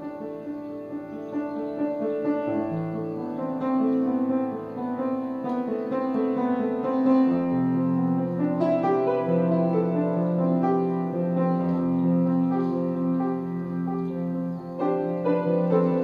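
Background piano music: held notes and chords in a slow progression, swelling in over the first few seconds.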